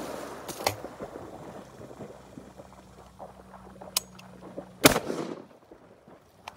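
A single 12-gauge shotgun shot about five seconds in, fired into the water next to a floating training bumper, with a short echo after the blast. A faint click comes about a second before the shot.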